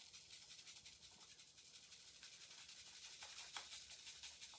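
Faint, rapid scratchy ticking of washing soda powder being tapped out of a cardboard box into a foam cup.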